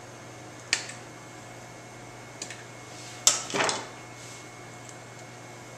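A hand tool clinking and knocking against the metal pipe fittings of a Salvajor commercial garbage disposal while its water supply line is disconnected: a few sharp clinks, the loudest pair about three seconds in.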